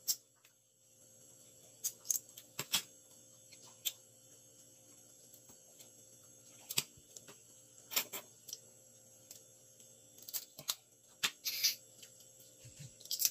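Cooked crab shell being cracked and picked apart with fingers and teeth: irregular sharp clicks and cracks, a few at a time.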